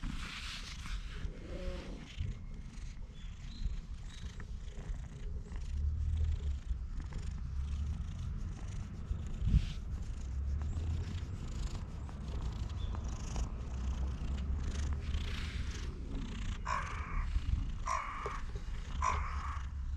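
Domestic cat purring steadily, a close low rumble, while having its chin scratched. A single sharp tap about halfway through and a few short higher-pitched sounds near the end.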